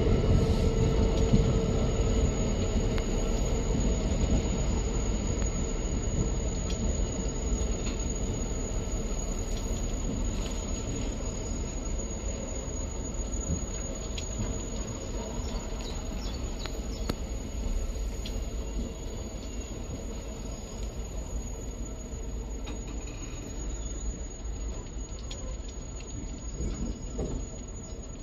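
Long train of Drax biomass hopper wagons rolling past, wheels rumbling on the rails with a thin high squeal and scattered short squeaks, growing gradually quieter.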